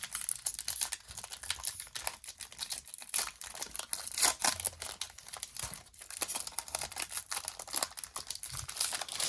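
Pokémon trading card booster pack wrapper being torn open and crinkled by hand: a dense, irregular run of crackles that stops suddenly at the end.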